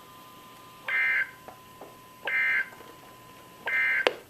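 Emergency Alert System SAME end-of-message data bursts: three short, harsh digital squawks about a second and a half apart, the signal that closes an EAS alert. A faint steady tone sits under the first two, and there is a sharp click near the end.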